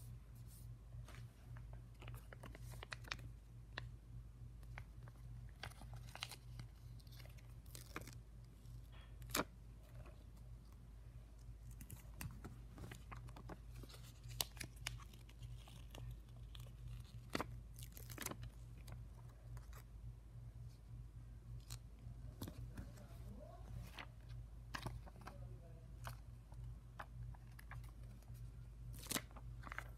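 Stickers being peeled off their backing sheet and pressed onto a paper journal page: scattered light clicks, crackles and paper rustles at irregular intervals, over a steady low hum.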